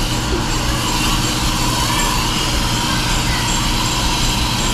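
Steady mechanical drone with a low hum, unchanging throughout.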